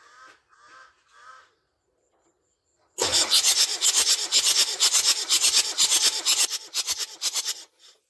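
Land Rover 12J 2.5-litre diesel being cranked on the starter with the glow plugs out during a compression test on cylinder four: a loud, rhythmic chuffing, about five beats a second, as each cylinder comes up on compression. It starts about three seconds in and stops near the end.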